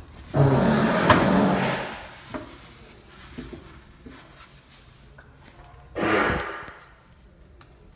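Odd bathroom noises: a loud sudden sound shortly after the start that lasts about a second and a half, with a sharp click in it, then a few faint clicks, then a second loud sudden sound about six seconds in.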